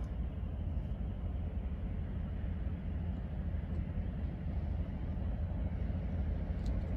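A steady low rumble with a faint hiss above it, unchanging throughout.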